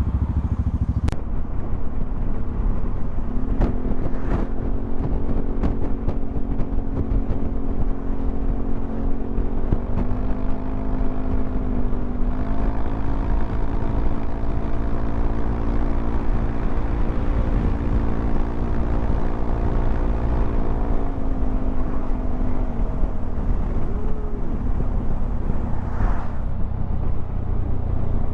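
Yamaha XMAX 300 scooter's single-cylinder engine droning while riding on the highway, under heavy wind rumble on the microphone. Its pitch steps up twice about ten and twelve seconds in, then slides down and fades near the twenty-second mark.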